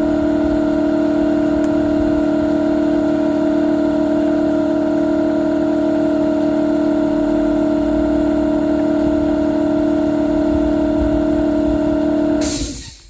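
Workshop air compressor running steadily to recharge its tank with a constant hum, then cutting out near the end with a short burst of hiss.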